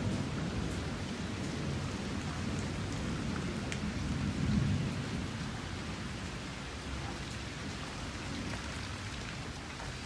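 Steady rain, with a low rumble of thunder that swells about halfway through.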